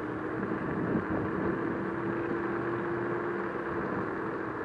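A scooter riding along a paved street: steady wind and road noise with a single motor whine that rises slightly in pitch over the first four seconds, then fades.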